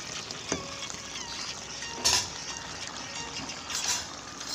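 A pan of vegetable curry bubbling at a simmer, with a sharp clink about half a second in and two short louder rushes, about two and four seconds in, as Malabar spinach (pui shak) leaves are dropped into the pan.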